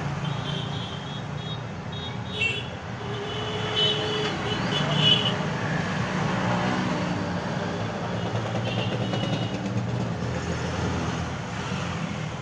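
Steady low background rumble, with a few short, high toots now and then.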